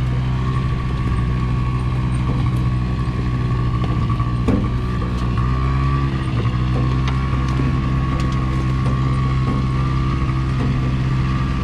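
ATV engine idling steadily at an unchanging pitch, with a thin steady whine above it.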